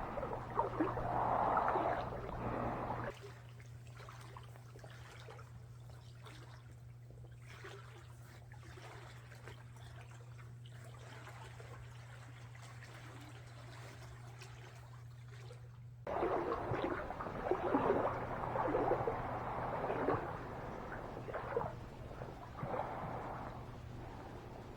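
Boots wading and sloshing through shallow water, stopping abruptly about three seconds in, leaving only a faint steady low hum, then starting again abruptly past the middle.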